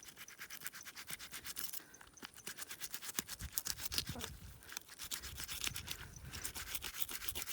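Knife sawing through a tilapia's back to cut out the spiny dorsal fin, a quick run of rasping strokes, several a second.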